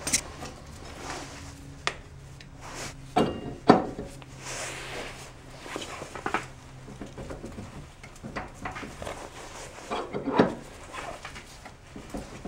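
Metal parts of a Can-Am ATV's front CV axle and wheel hub being handled during refitting: scattered clanks and knocks with handling noise in between. The sharpest knocks come about three to four seconds in and again near ten seconds.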